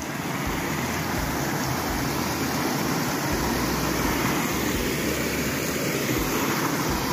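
Muddy, rain-swollen stream rushing over a dirt path, a steady rush of water. The stream has been raised by continuous rain since the night before.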